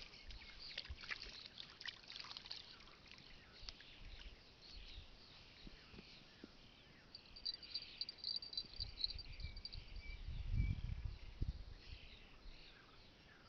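Small birds chirping and calling, with a rapid trill about halfway through. Wind rumbles on the microphone through the second half, loudest about three-quarters of the way in.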